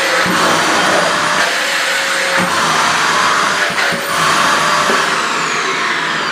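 AEG VX4 bagged canister vacuum cleaner running at maximum suction with its nozzle worked over carpet: a loud, steady rushing hiss with a faint high motor whine and a few light knocks. Near the end the whine begins to fall in pitch.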